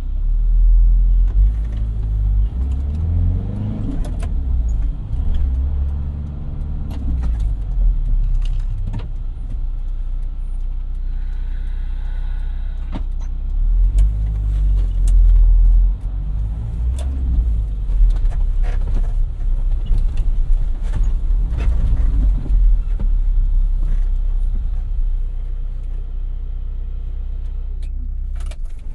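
VW T3 van's engine running as heard from the driver's seat, its note rising and falling with changes in revs a few times, with scattered clicks and rattles from the cab.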